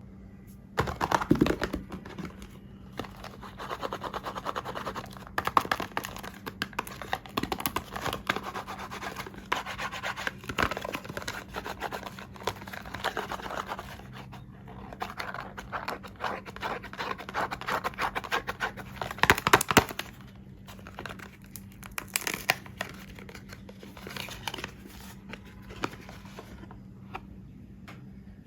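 Soap packaging being opened by hand, crinkling and tearing in irregular bursts. It is loudest about a second in and again around twenty seconds in, over a faint steady hum.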